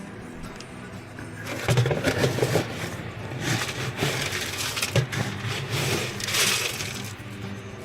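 Irregular crunching and rustling handling noises, starting about a second and a half in and dying down near the end.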